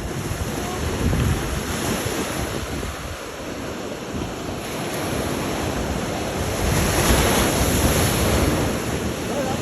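Ocean surf rushing, swelling about a second in and again around seven to eight seconds, with wind buffeting the microphone.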